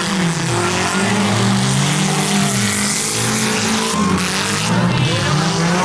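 Several old sedans' engines racing around a dirt track, their pitch rising and falling in overlapping revs as the cars accelerate and back off, over a steady hiss of tyres and dirt.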